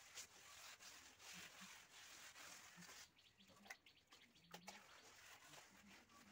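Near silence: a faint hiss that drops away about halfway through, with a few soft clicks.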